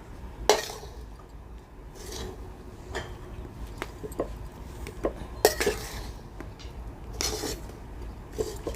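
A spoon clinking and scraping against a dish while stirring milk into a stiff khoya and coconut mixture: irregular light knocks and scrapes.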